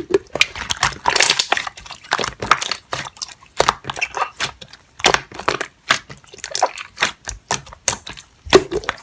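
Slime being squished and poked by hand, giving a quick, irregular run of sticky clicks and pops.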